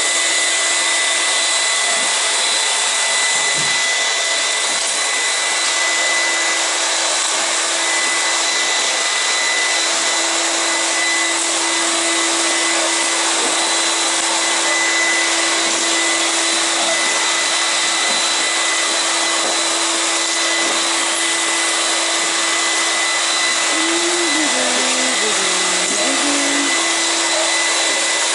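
Canister vacuum cleaner running steadily: a constant rushing hiss with a steady whine in it.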